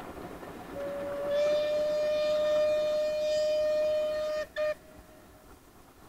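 Steam locomotive whistle: one long steady blast of about three and a half seconds, then a short toot just after it cuts off, over the faint running of the train.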